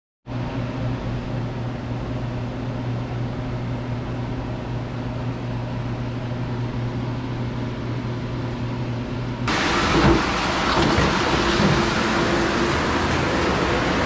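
Steady hum of dish room machinery with a low, even tone. About two-thirds of the way in it changes abruptly to a louder, hissier machine noise with a few knocks.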